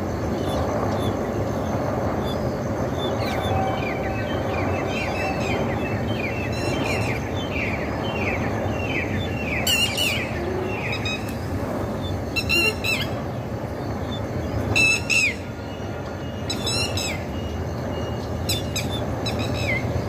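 Rose-ringed (green ringneck) parakeets calling in the trees: a quick run of short falling chirps, then five loud, harsh screeches a couple of seconds apart, over a steady background hiss.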